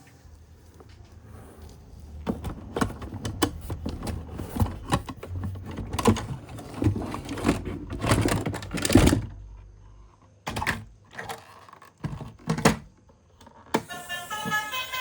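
Plastic toy vehicles being handled, a quick run of clicks, clatters and knocks over a low rumble, then a few separate knocks. Music starts near the end.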